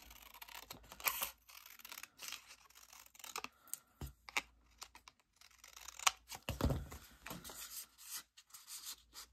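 Scissors snipping through printed paper, mixed with paper rustling and handling: scattered short snips and crisp rustles, with a duller knock about six and a half seconds in.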